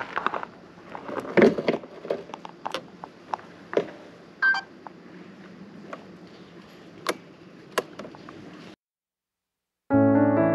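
Scattered sharp knocks and clicks over a low background hiss, with a short squeak about four and a half seconds in. The sound cuts out near the end, and after a second of silence a piano piece starts, louder than anything before it.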